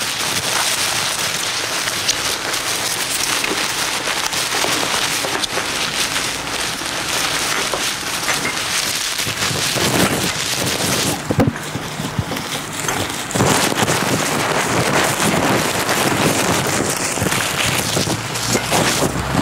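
Dense crackling and rustling of recyclable waste packaging, such as plastic and paper, being crumpled and handled, a busy stream of fine crackles with a slightly thinner stretch near the middle.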